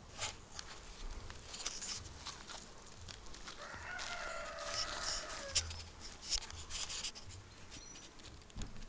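A rooster crowing once, about three and a half seconds in, a call of roughly two seconds that drops in pitch at the end. Scattered clicks and crackles and a low rumble run underneath.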